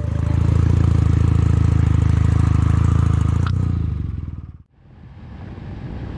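Kawasaki W800 air-cooled parallel-twin engine running loud and steady with a fast, even pulse. It falls away to almost nothing about four and a half seconds in, then wind and road noise of the ride build back up.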